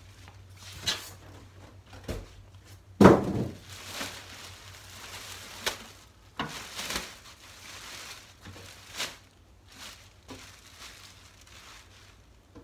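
Clear plastic wrapping rustling and crinkling as it is pulled off a new benchtop planer, with scattered knocks from handling the machine and one loud thunk about three seconds in.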